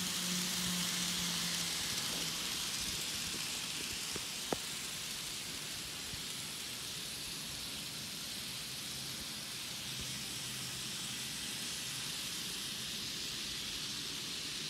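Model train running on its track: a steady hissing whir of the small wheels and motor, with one sharp click about four and a half seconds in.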